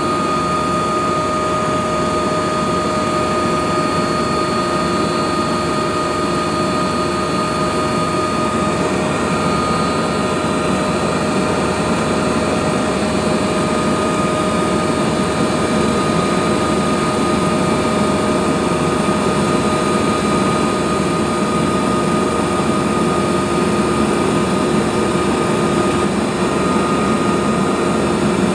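Helicopter in cruise flight: a steady, loud engine and rotor drone, with a constant turbine whine made of several fixed tones running over it.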